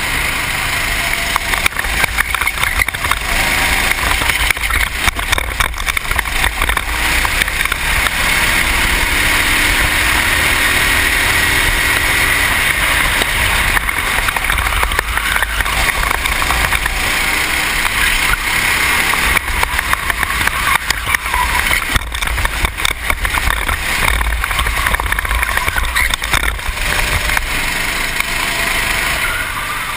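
Racing kart engine running at speed, its note rising and falling through the corners. The sound is picked up by a helmet-mounted camera, with heavy wind and vibration buffeting on the microphone.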